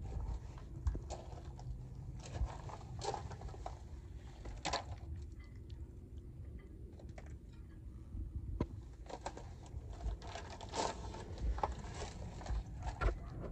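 Footsteps crunching irregularly on loose gravel.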